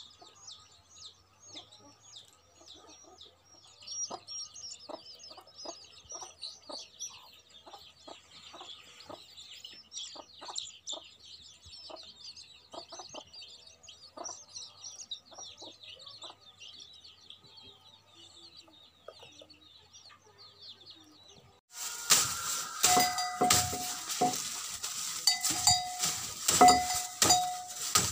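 Chickens clucking in short, scattered calls, with small birds chirping high and busily behind them. About three-quarters of the way through, the sound switches abruptly to louder knocking and rustling with a repeated ringing tone as a water buffalo feeds on leaves in its wooden stall.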